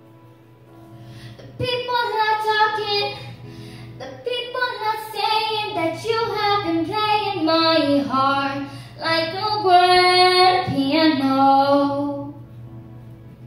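A young girl singing into a handheld microphone. Her melodic vocal line slides and runs up and down, starting about a second and a half in and stopping near the end.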